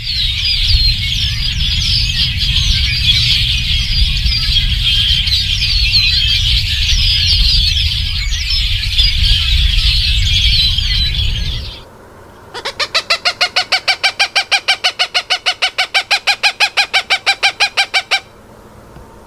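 A flock of birds chattering, many calls overlapping, over a steady low rumble. It stops near the middle, and after a short pause one bird gives a rapid, even series of harsh calls, about six a second, for five or six seconds.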